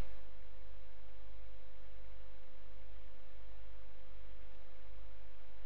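Steady low electrical hum with a faint thin tone held at one pitch over light hiss: the recording's constant background noise, with no clicks or other events.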